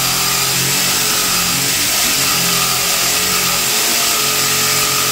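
Power tool running steadily at full speed, cutting through old metal water pipe.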